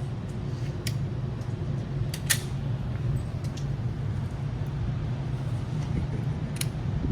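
Steady low hum of an indoor gun range's ventilation system. A few light clicks sound over it: one about a second in, two close together a little after two seconds, and one near the end.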